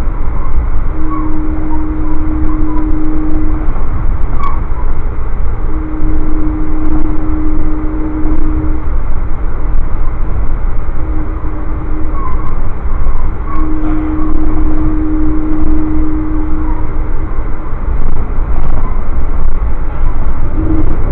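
Passenger train running along at speed with a steady rumble, while the locomotive's horn, heard from back in the train, sounds the grade-crossing signal: two long blasts, a short one and a long one.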